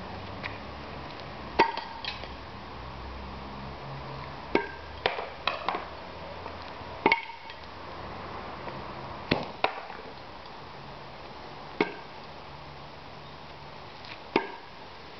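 Steel bar shuriken striking a wooden target, thrown one after another: about eight sharp knocks spaced one to three seconds apart, several with a short metallic ring.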